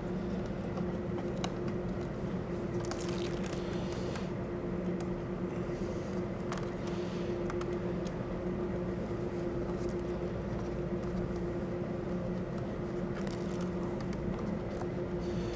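A steady machine hum fills the room throughout. Over it come faint squishing and rustling as a rubber weather seal on two-way tape is pressed down around the edge of a saddlebag lid, a little at a time.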